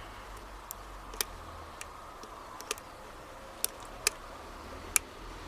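A scattering of small, sharp, irregular clicks from a lock pick lifting and tapping the pin tumblers inside an old Lockwood five-pin padlock, held under tension during single-pin picking.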